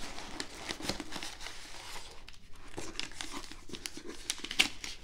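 Tissue paper and paper confetti circles in a shipping box rustling and crinkling as hands push them aside and lift out a tissue-wrapped parcel: an uneven run of crackles, a few sharper ones near the end.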